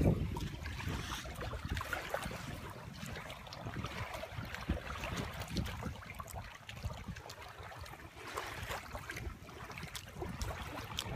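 Small waves lapping and trickling among shoreline rocks, with an uneven low rumble of wind on the phone's microphone. A loud handling knock comes right at the start as the phone is moved.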